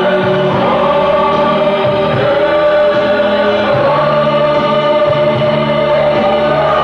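Music with many voices singing together, loud and without a break.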